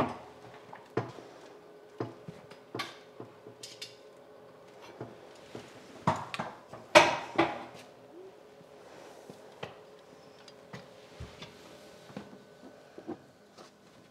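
Irregular knocks, clicks and rattles of blue air-line tubing being handled and fed up a ladder to be fixed along the wall, loudest about six to seven and a half seconds in, over a faint steady hum.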